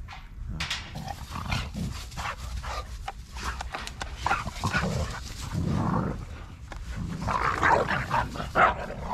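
A dog's vocal sounds in short, irregular bursts, loudest near the end.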